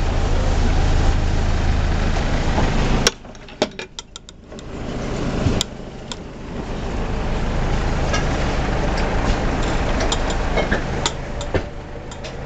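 Houseboat's engine running with a steady low hum, which drops away briefly about three seconds in, with scattered knocks and clicks over it.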